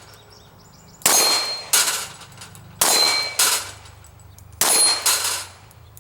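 Sharp metallic clangs with a ringing tone, coming in pairs about half a second apart, one pair roughly every two seconds.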